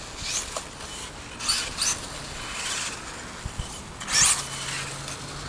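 Brushless electric motors of 1/16-scale Traxxas RC cars whining in short bursts as the cars are throttled up and let off, several rising and falling whines with the loudest about four seconds in.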